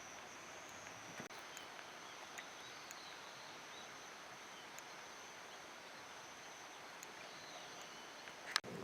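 Quiet wetland ambience: a steady hiss with a constant high-pitched insect-like tone, a few faint short bird calls, and one sharp click near the end.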